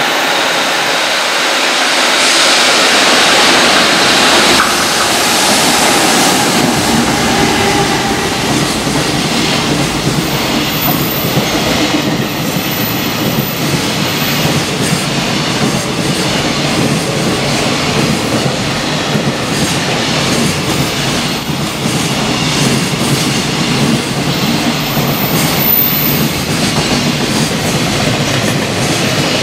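A JR Freight EF210 electric locomotive hauling a long container freight train passes through a station at speed. The noise swells within the first second and is loudest in the first few seconds as the locomotive goes by, then settles into a steady rumble from the container wagons with repeated clacks of wheels over rail joints.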